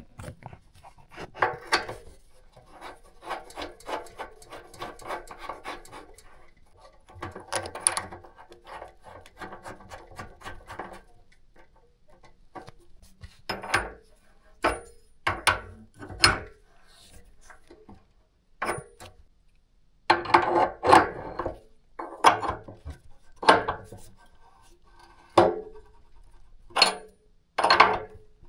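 Hand tools working a copper compression fitting on a radiator pipe. First comes a long run of rapid small clicking strokes, then a dozen or so separate sharp metallic knocks and clicks, loudest near the end.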